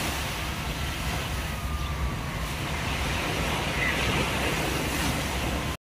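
Steady seaside ambience: a hiss of wind and light surf over a low, fluctuating rumble, with a faint short chirp about four seconds in.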